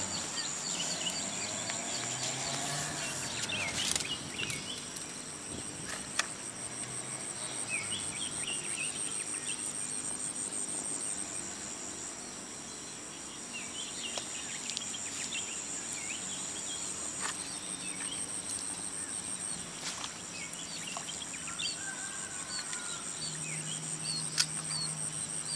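Insects trilling steadily at a high pitch, with short bird chirps scattered throughout and a few sharp clicks. A low steady hum comes in near the end.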